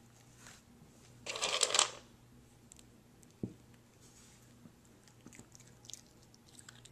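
Puppy eating dry kibble off a fleece blanket: a short, dense burst of crunching and crackling about a second in, a single soft knock midway, then faint scattered chewing clicks.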